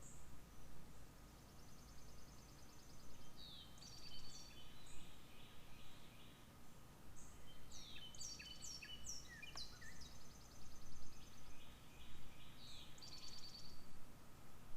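Several songbirds chirping and trilling, with quick repeated chirps and short trills that come thickest around the middle, over a faint steady low rumble.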